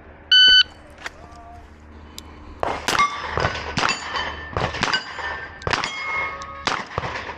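Shot timer's start beep, then about two seconds later a string of revolver shots, one to two a second, each with the ring of a hit steel plate.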